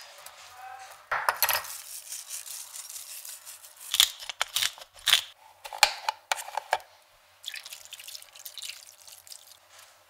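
Asparagus spears being laid in a glass baking dish, giving a series of sharp clicks and taps against the glass, loudest between about four and seven seconds in. Near the end there is a softer rustle as a cardboard butter carton is handled.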